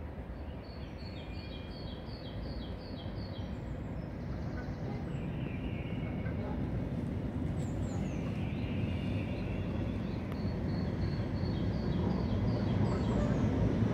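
Low rumble of an approaching vehicle, growing steadily louder. A small bird chirps in quick runs of short high notes, near the start and again about ten seconds in.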